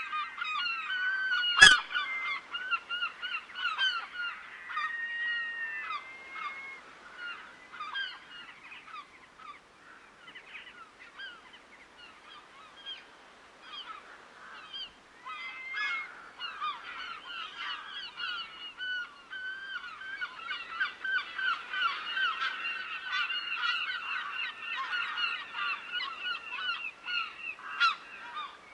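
A large flock of waterbirds calling constantly in many short, overlapping calls. The calls thin out in the middle and grow dense again toward the end, with a single sharp click about two seconds in.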